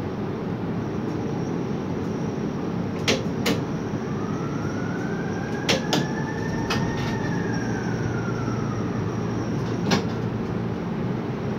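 Hot metal overhead crane heard from inside its cab: a steady machinery rumble with several sharp clicks, and a drive whine that rises for a few seconds, then falls away as the crane motor speeds up and slows.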